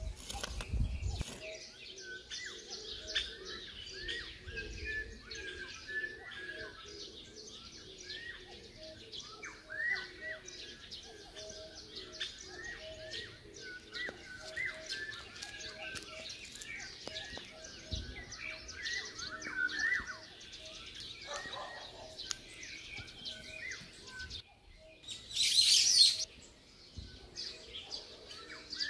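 Birds singing and chirping, many short rising and falling calls over a low note repeated about every second. Near the end there is a brief, loud rustling hiss.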